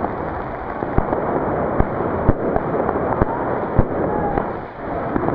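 Firecrackers going off in sharp single bangs, roughly one every half second to a second, over a steady din of a crowd and more distant fireworks.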